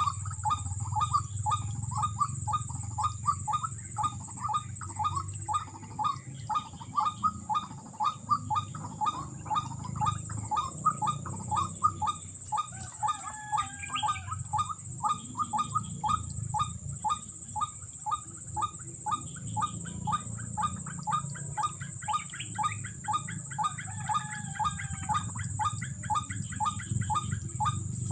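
White-breasted waterhen calling: a long, unbroken run of short, rapid notes, about four a second, with a few other birds' whistles over it now and then.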